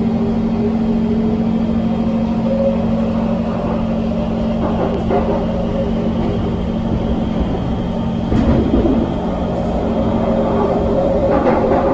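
SMRT C151 MRT train running: a steady electrical hum with fainter higher tones over rolling rumble, from the train's high-frequency shunt chopper control. A louder burst of rumbling noise comes about eight seconds in.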